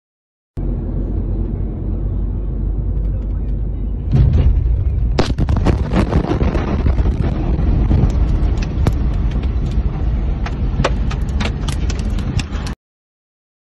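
Inside a car: a steady low rumble, then about four seconds in a sudden heavy low boom as the blast wave of the ammonium-nitrate explosion hits, followed by many sharp knocks and rattles for several seconds as the car and the phone are shaken.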